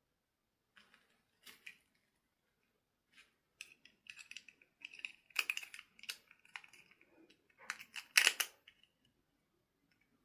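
Hands handling small plastic objects: a run of short clicks and rustles that grows busier and louder after the first few seconds, with the loudest snaps near the end.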